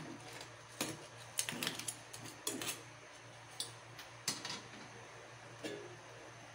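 Crabs in coconut milk boiling in a frying pan: scattered soft pops and ticks of bursting bubbles, irregular, over a faint low hum.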